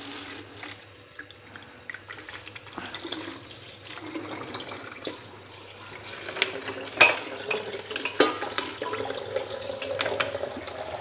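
A thin stream of water from a water-purifier tap runs into a small plastic bottle. The pitch of the filling rises in the last few seconds as the bottle fills up. A couple of sharp clicks come about seven and eight seconds in.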